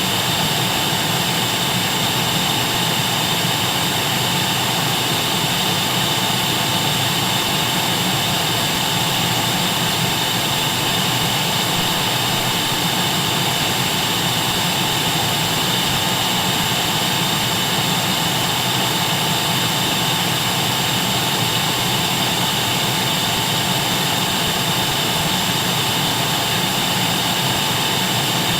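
Vacuum cleaner running steadily at full suction, a constant rushing drone with a thin motor whine and no change in pitch or level.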